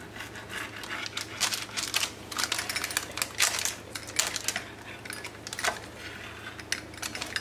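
Pizza cutter wheel rolling through a baked mozzarella and almond-flour pizza crust and over parchment paper: a rapid, irregular run of clicks and crackles.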